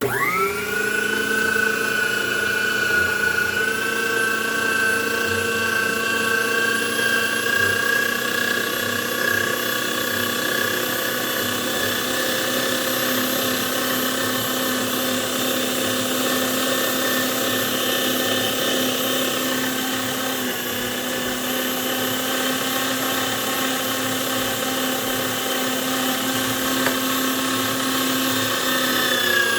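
Electric meat grinder switched on: its motor starts abruptly, winds up in pitch within the first second, then runs with a steady high whine.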